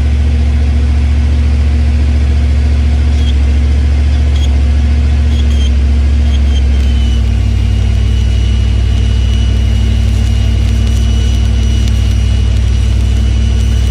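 LS V8 engine running steadily to drive a modified alternator in weld mode, a loud low hum throughout. About halfway in, a steady high whine joins it and the hum grows fuller as a stick-welding arc is struck and draws current from the alternator.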